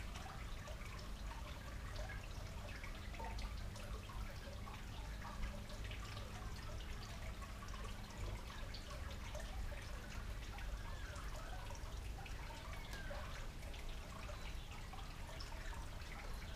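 Small garden fountain trickling and dripping steadily, with a low steady hum underneath.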